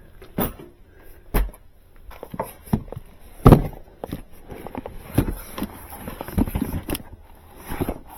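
Irregular knocks and clicks of things being handled and set down, with a loud knock about three and a half seconds in.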